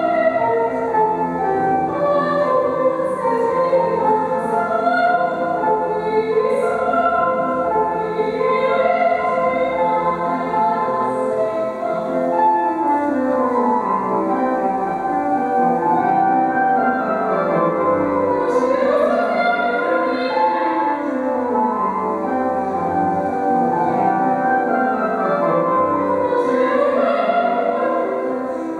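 Live opera singing with piano accompaniment.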